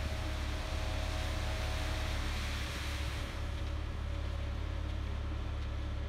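Concrete mixer truck running with a steady low drone while its drum discharges concrete down the chute. A higher hiss over the drone fades out a little past halfway.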